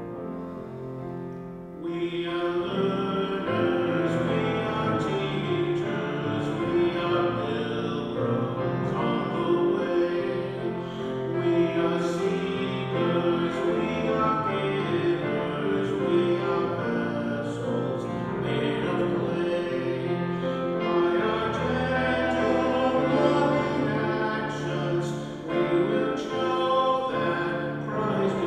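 Church hymn sung by voices with instrumental accompaniment, growing fuller and louder about two seconds in: the entrance hymn at the opening of Mass.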